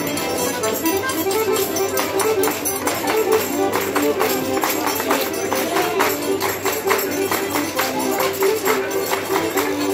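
Live Portuguese folk music: an accordion playing a lively melody over a steady tambourine beat.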